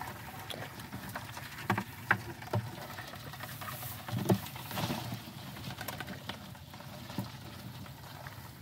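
A hand digging into wet mud in a field-crab burrow among rice plants: irregular pats, squelches and scrapes, with a few sharper smacks about two and four seconds in.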